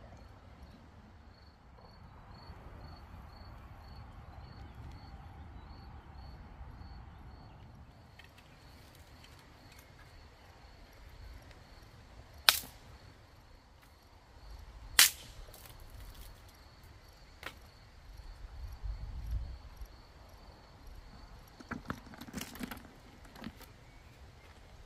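Quiet outdoor ambience with a faint, steady, high insect trill, broken by two loud sharp cracks about two and a half seconds apart midway through, and a few lighter knocks and clatters near the end.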